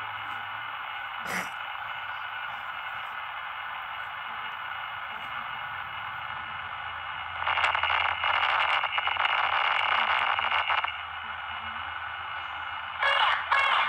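Steady static hiss of a surveillance camera's audio track. About halfway through it is broken by roughly three seconds of loud, harsh, distorted sound, and near the end by a shorter burst, taken for the woman yelling.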